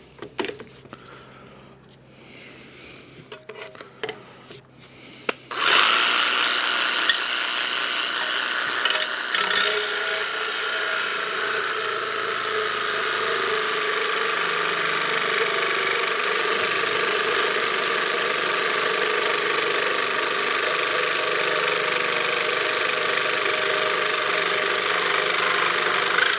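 Parkside 20 V cordless jigsaw/sabre saw, fitted with a longer blade, cutting a straight line through a hard metal sheet. After a few light handling clicks, the loud, steady cutting noise starts about five and a half seconds in, with a high whine that sinks a little in pitch as the blade settles into the cut, and it stops at the very end.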